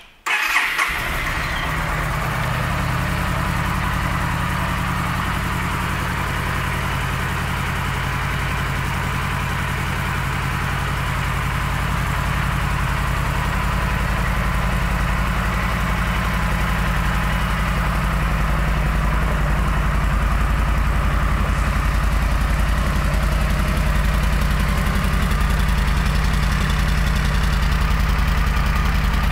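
2015 Yamaha V Star 1300 Tour's stock V-twin engine, turned over on the electric starter and catching at once, then idling steadily.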